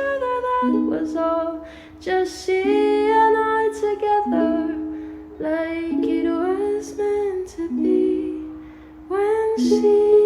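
Music: a slow, gentle song, a voice carrying the melody over plucked string accompaniment.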